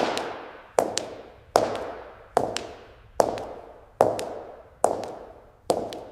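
High-heel footsteps walking at a steady pace on a hard floor, about one step every 0.8 seconds. Each step is a sharp click, often followed closely by a second tap, with an echoing tail.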